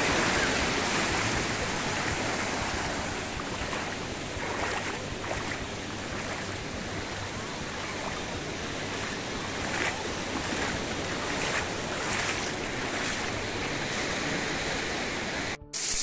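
Small waves washing onto a sandy beach: a steady surf wash that breaks off abruptly near the end.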